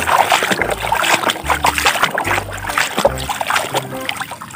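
Water splashing and sloshing in a tub as a toy truck is swished and scrubbed by hand, easing off near the end.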